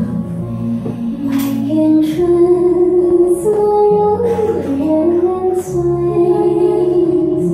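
Recorded song playing for a dance: a woman sings a slow melody with held, sliding notes over instrumental backing, with a few light percussion hits.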